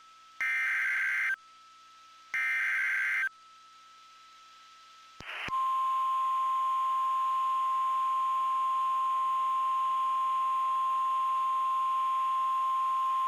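Emergency Alert System SAME header: two short, buzzy bursts of digital data about a second apart, the last of the three header repeats. After a pause of about two seconds comes a single steady high tone lasting about eight seconds: the National Weather Service 1050 Hz alert tone that announces a weather warning.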